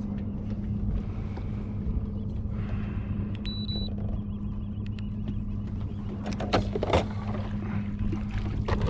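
Boat motor running with a steady hum. There is a short electronic beep about three and a half seconds in, and a couple of knocks about two-thirds of the way through.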